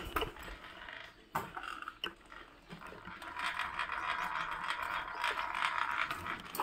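Kick scooter knocking twice in the first two seconds, then its small wheels rolling over a tiled floor with a steady whirring noise.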